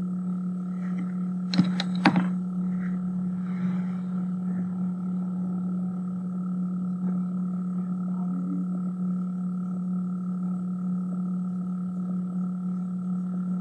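A steady low hum with overtones, unchanging throughout, with two sharp clicks about a second and a half and two seconds in.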